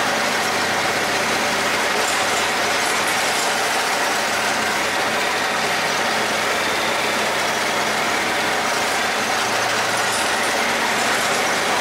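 A boat's engine running steadily as the boat moves along a canal: a loud, even drone that does not change.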